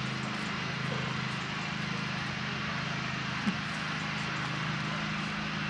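Steam locomotive standing at the platform, giving a steady hiss of steam over a low, even hum, with one short blip about three and a half seconds in.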